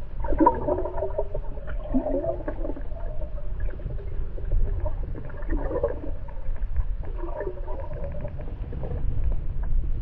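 Muffled underwater sound: a steady low rumble with gurgling and a few wavering, moaning tones that come and go.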